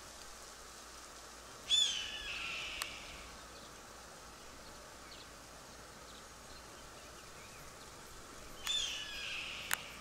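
A perched raptor, which the filmers take for a golden eagle, calling twice: a high, hoarse, downward-slurring scream about two seconds in and again near the end, each trailing off for about a second. A short sharp click follows each call.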